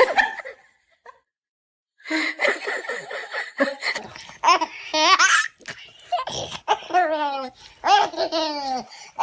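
A person laughing hard: a short burst, a second and a half of silence, then rapid breathy pulses and several high, falling squeals of laughter.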